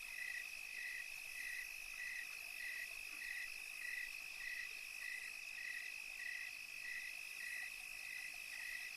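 Night insect chorus: crickets giving a steady high trill, with a second caller repeating a short pulsed chirp evenly, a little under twice a second.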